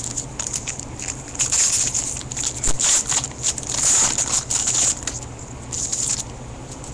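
Crinkling and crackling of a foil trading-card pack wrapper being torn open and the cards handled, in irregular bunches that die down near the end, over a steady low hum.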